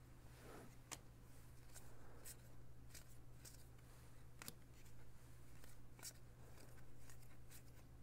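Faint light clicks and rustles of trading cards being flipped through by hand, a few irregular snaps spread across the stretch, over a low steady hum.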